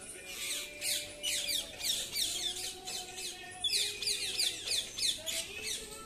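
A flock of rose-ringed parakeets screeching: many shrill, falling calls overlapping in quick succession, with a short lull about three and a half seconds in.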